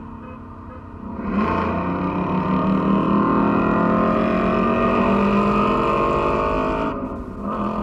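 Ford Mustang GT's 5.0 V8 with muffler and resonator deleted, revving hard in one long, loud pull lasting about six seconds. It then lifts off, with a short blip near the end.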